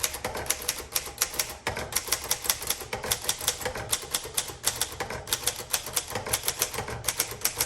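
Manual typing on a 1950 Underwood Champion typewriter: keys and type bars clacking against the platen several times a second in a steady run, with a brief pause about one and a half seconds in.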